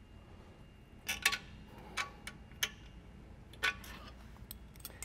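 Light clicks and taps of small parts and tools being handled, starting about a second in, irregular and spaced out.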